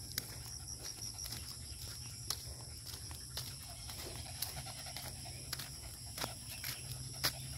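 Small dog panting after a run, with scattered footsteps crunching on a gravelly dirt road.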